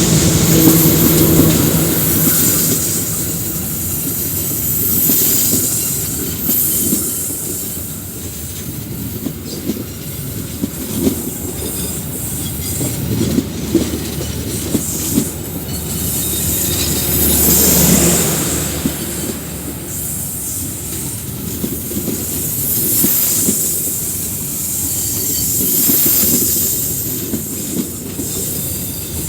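A departing passenger train's carriages rolling past close by. The wheels clack over the rail joints, with a high wheel squeal that comes and goes.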